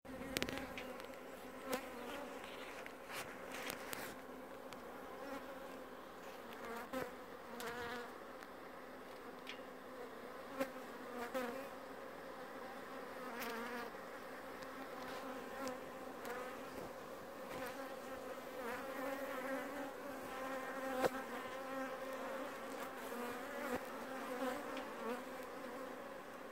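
Wild honeybee colony buzzing in a steady pitched hum as it is cut out of a hollow tree trunk, many bees in flight around the opened nest. Scattered short clicks and knocks sound over the hum.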